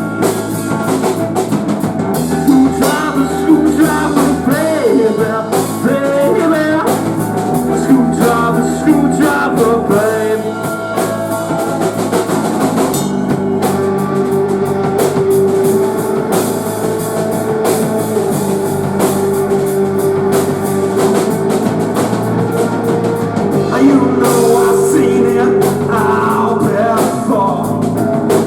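Grunge-tinged rock band playing: drum kit, bass and electric guitar in an instrumental stretch, with lines that bend in pitch in the first half and a long held note in the middle.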